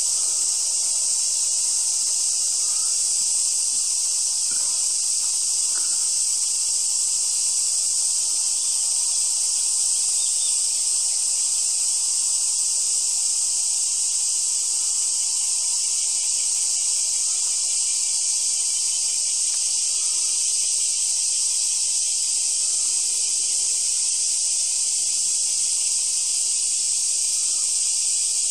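Steady, continuous summer insect chorus: a loud, high hiss-like buzz that keeps up without a break or rhythm.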